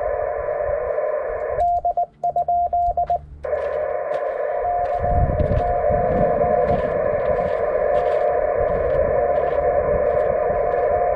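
Amateur radio transceiver audio in Morse code: band-limited receiver hiss with a tone near 700 Hz. About two seconds in, the receiver goes quiet while the sidetone keys a short string of Morse as the operator transmits. The receiver hiss then comes back with broken Morse tones from calling stations, over a low rumble.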